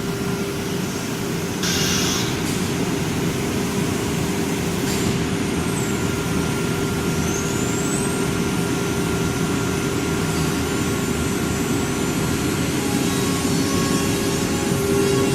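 Automatic-tool-changer CNC router running just after its program is started, a steady machine hum with one held tone. About two seconds in there is a short hiss of compressed air, and near the middle a faint high whine rises in pitch.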